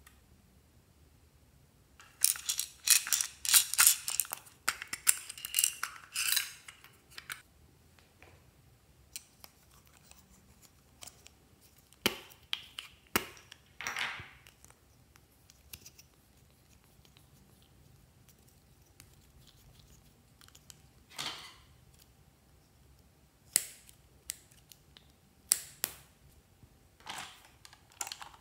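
Small plastic items handled by hand over a glass dish: a dense run of clicks and rattles a couple of seconds in, then scattered single clicks and taps, among them glue sticks and a plastic toy being picked up and handled.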